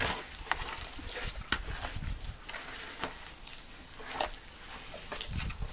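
Hands squeezing and working crumbly cheese-biscuit dough of sour starch, cheese and egg in an aluminium bowl: irregular squishing, rustling and scraping, with a dull thump at the start and another about five seconds in.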